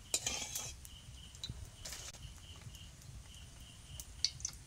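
Hot oil foaming in a black iron karahi over a wood fire, with a short scrape and hiss from a metal spatula near the start, another hiss about two seconds in, and a few light clinks near the end as oil is poured in from a steel bowl. A faint, evenly repeating chirp runs underneath.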